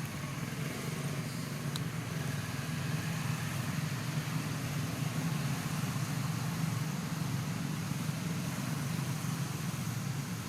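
Steady low rumble of a motor vehicle's engine running nearby, holding even throughout.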